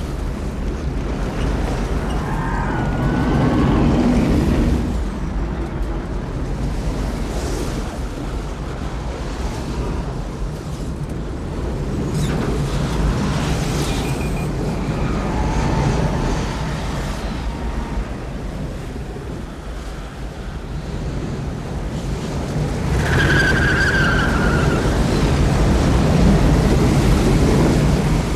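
Film storm-chase sound effects: a constant heavy rumble of storm wind and vehicle engines, with brief tire squeals a few seconds in, around the middle, and a louder one near the end.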